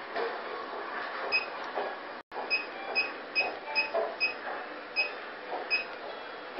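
Multi-functional facial beauty machine giving about nine short, high electronic beeps at uneven gaps of half a second to a second, over a steady hiss.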